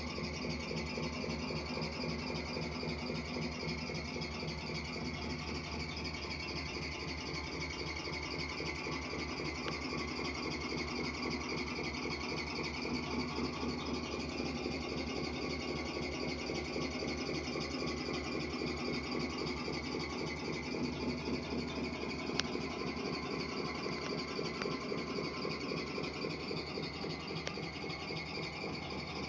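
Simulated V8 truck engine idling steadily from an RC truck's sound unit, with a steady high chirping of insects in the background.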